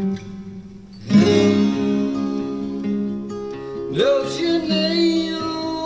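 Rock song intro played from a vinyl record: guitar music that drops quiet briefly, then comes in full with a loud chord about a second in, with a sliding note about four seconds in.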